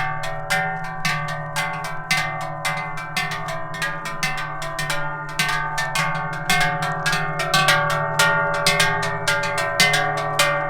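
Several large Swiss cowbells clanging together in a steady rhythm, about three to four strokes a second, their tones ringing on between strokes.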